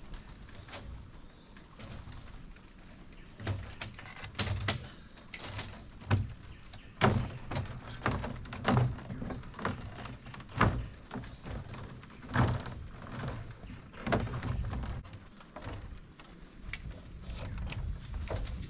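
Steady high-pitched drone of insects, crickets or cicadas, with irregular knocks and creaks, as if of wood or bamboo being moved, every second or so.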